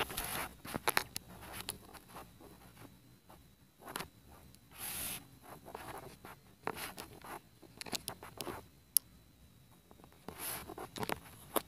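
Irregular rubbing and scraping against carpet, with a few sharp clicks, close to the microphone: handling noise of a phone and hands brushing over the carpet.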